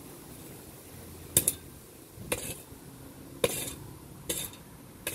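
Metal spade blade digging into garden soil: about five sharp strokes roughly a second apart, some followed by a short scrape.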